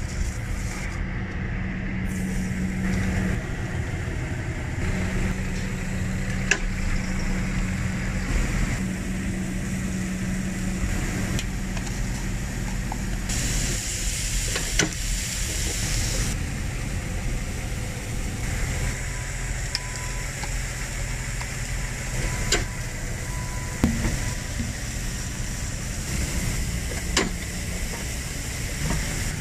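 Steady low rumble of street traffic, with a few sharp clicks from a metal tortilla press being opened and closed on raw hamburger patties, and a brief hiss about halfway through.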